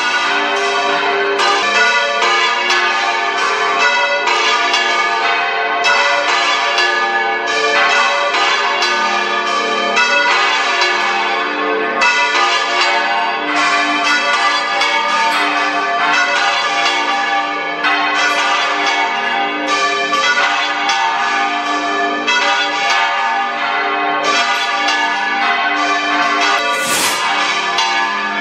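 Church bells pealing without a break, many bells struck fast in an overlapping jumble of ringing tones, with a brief noisy burst near the end.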